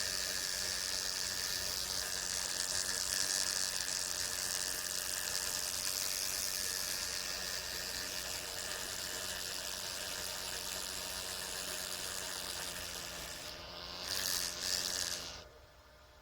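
Brown marmorated stink bug buzzing its wings in a steady, pitched buzz, with a louder flurry near the end before it stops suddenly.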